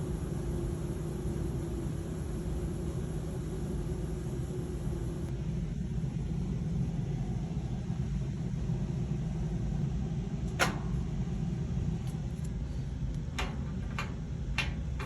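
GE top-load washer running with a steady low rumble; a hum in it fades out about five seconds in. Several sharp clicks come in the last few seconds.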